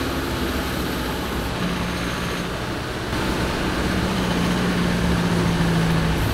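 Mercedes-Benz Unimog UHE 5023's 5.1-litre OM 934 four-cylinder diesel running as the truck drives along a paved road, mixed with tyre and road noise. A steady engine hum comes in about a second and a half in and holds.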